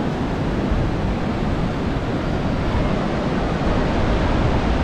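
Ocean surf washing steadily onto a sandy beach, with wind rumbling on the microphone.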